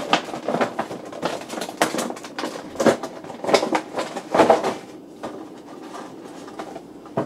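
Action figure packaging being handled: quick clicks and rustling for about five seconds as the figure is taken out, then it dies down.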